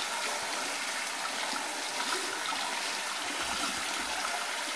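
Bathroom sink tap running steadily, hot water left on to warm up.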